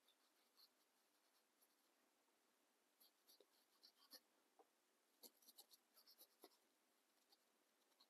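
Near silence with faint, scratchy strokes of a small paintbrush scrubbing dry pastel onto an artificial wood duck foot, coming in two short runs about three and five seconds in.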